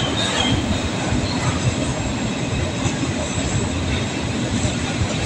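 Container wagons of a freight train rolling past: a steady, loud rumble of steel wheels running on the rails.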